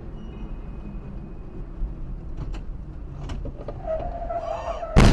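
Road rumble inside a moving car, with a steady whine rising into a sharp, loud bang of a collision near the end; the driver afterwards says the car doesn't brake at all.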